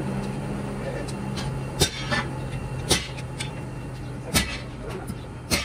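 Four sharp metallic clinks about a second apart as steel wheel studs and nuts are handled against a heavy brake drum hub, over a steady low machine hum.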